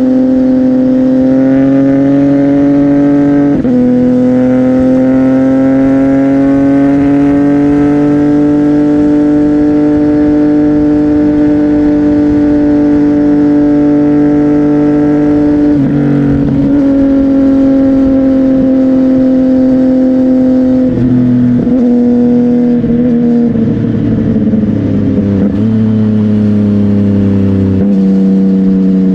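CFMOTO 675NK's inline-three engine running through a Burnout titanium exhaust under way, its note holding steady and slowly rising, with brief breaks in pitch where the throttle is rolled off or a gear is changed. Near the end it settles to a lower, steady note.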